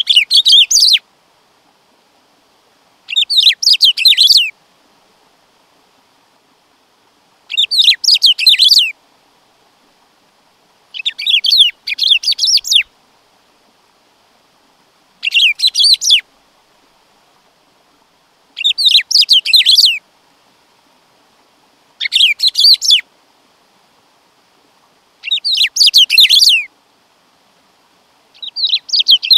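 Black-throated saltator (bico-de-pimenta) singing: nine short phrases of rapid, jumbled notes, each about a second long, repeated every three to four seconds.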